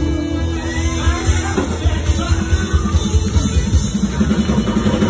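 Live rock band playing: electric guitar and bass notes over a steady drum-kit beat.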